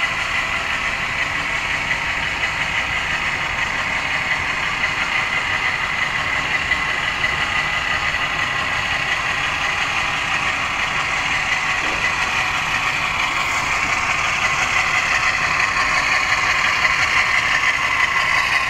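HO-scale model train with diesel locomotives and coal hoppers running steadily along the track and through a turnout, a continuous mechanical running sound that grows slightly louder in the second half as the train passes close by.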